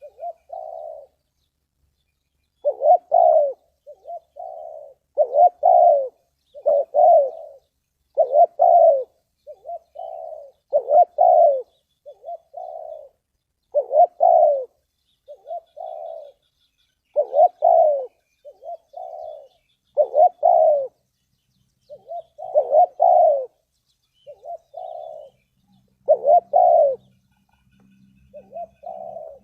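Spotted dove cooing: a repeated phrase of several low coos, one phrase about every three seconds.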